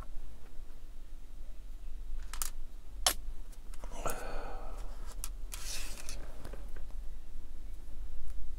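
A few sharp clicks and a short rustle and hiss as small tools and plastic model parts are handled at a workbench.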